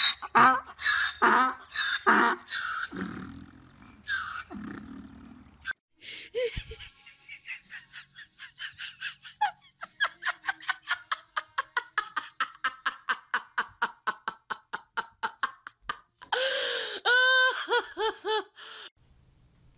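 A person laughing hard in quick, evenly repeated bursts, about four a second, breaking into high, squealing laughs near the end. The first six seconds hold a different run of loud, rhythmic vocal sounds that stops suddenly.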